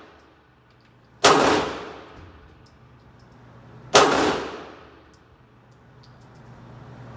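Two pistol shots nearly three seconds apart, the first about a second in, each with a long echoing tail.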